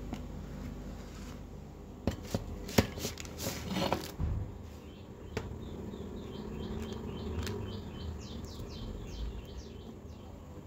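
Sharp clinks and knocks of a metal baking tin being handled as a baked brownie is lifted out of it, loudest about three seconds in. They are followed by a run of faint, quick high chirps.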